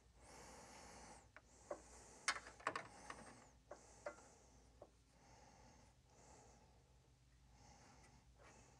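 Near silence: faint scratchy strokes of a marker drawing alignment marks on a battery tray against a metal straightedge, with a few small clicks and taps in the first half and soft breathing close to the microphone.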